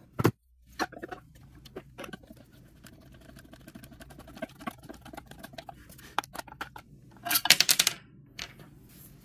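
Small clicks and scratchy knocks of a 3D-printed plastic fork being fitted and screwed onto a coffee grinder's mount with a hand screwdriver, with a quick run of louder clicks near the end.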